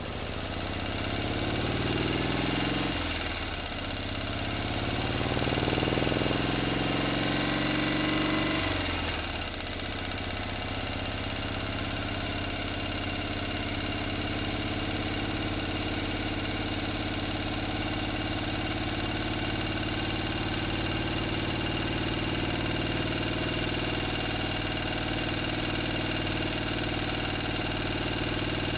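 Motor engine sound revving up twice in rising pitch over the first nine seconds, then settling to a steady idle.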